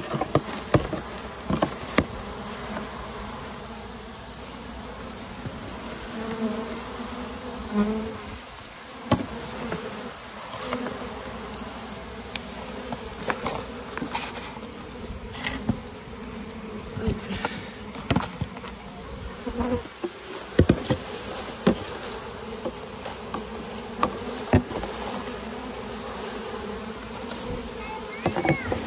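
A large mass of honeybees buzzing in a steady droning hum, with scattered sharp knocks and clicks over it.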